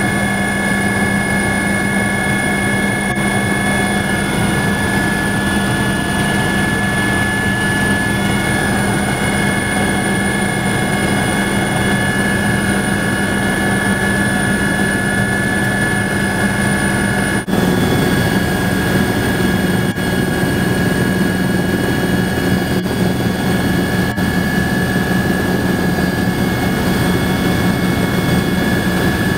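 Helicopter engine and rotor noise heard from inside the cabin: a steady loud drone with a low hum and high whining tones. About two-thirds of the way through it changes abruptly, and the low hum takes on a rapid pulsing.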